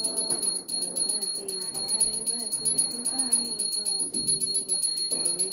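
A small brass pooja hand bell (ghanti) rung rapidly and evenly, about ten strokes a second, for a Diwali aarti, over a devotional aarti song with a wavering melody.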